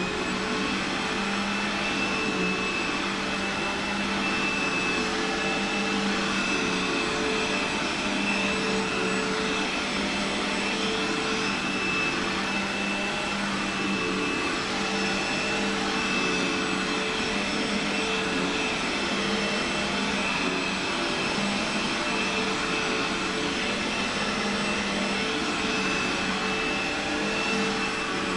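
Upright vacuum cleaner running steadily as it is pushed over carpet: a constant motor drone with a high whine held on one pitch.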